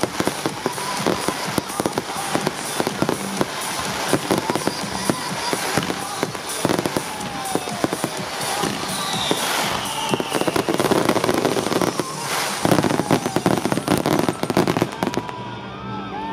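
Fireworks display going off: dense rapid bangs and crackling from ground fountains and aerial shells, with a couple of falling whistles between about seven and ten seconds in.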